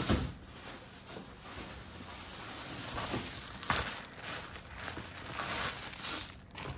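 Handling noise as a pair of black leather loafers is picked up, turned and set down on a display stand: rustling and crinkling of paper or plastic wrapping, with a soft knock at the start and a sharper click a little past the middle.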